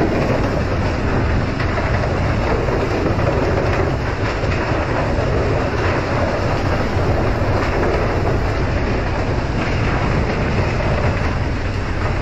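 Steady rumble and rushing water aboard a pole-and-line fishing boat under way: the boat's low engine drone mixed with the hiss of its water sprayers and the sea rushing along the hull.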